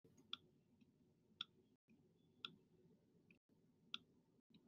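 Near silence with four faint clicks about a second apart: a stylus tapping on a tablet screen while writing by hand.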